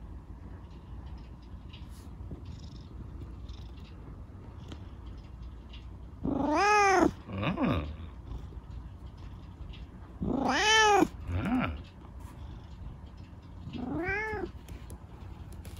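Tabby kitten meowing three times, a few seconds apart, each call rising then falling in pitch; the first two are loud and each is followed by a short, lower second call, and the third is softer.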